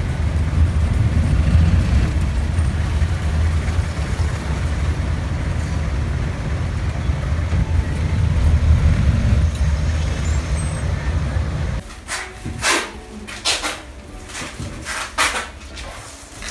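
Low, steady rumble of a vehicle's engine and road noise while riding along a road. About twelve seconds in it cuts abruptly to quieter clicks and rustling.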